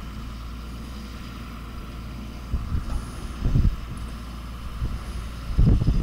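Claas Arion 610 CIS tractor's diesel engine running steadily under load while pulling a plough. Gusts of wind buffet the microphone, most strongly midway through and near the end.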